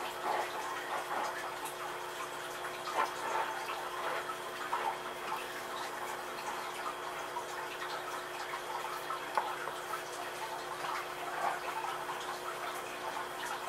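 Damp paper towel rubbing around the rims of glass canning jars, with scattered small clicks and taps against the glass, over a steady background hum.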